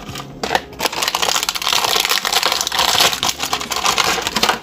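Plastic packet of seasoned nori seaweed crinkling and rustling as it is handled, a dense crackle of small clicks that builds about a second in and stops just before the end.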